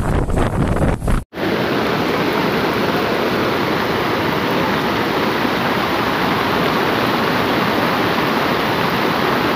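Brown floodwater rushing in a fast, turbulent torrent across a road, a steady, loud wash of water noise. In the first second, wind buffets the microphone before cutting off abruptly.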